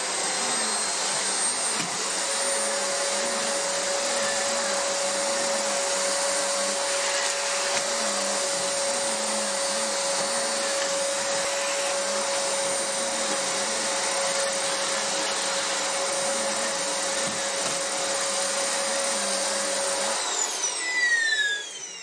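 Vacuum cleaner fitted with a Mitsubishi power brush head, running steadily with a high motor whine. About 20 seconds in it is switched off and the whine winds down.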